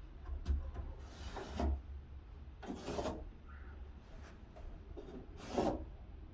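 Three separate scraping strokes across cherry wood, each lasting about half a second, as the wood is worked by hand.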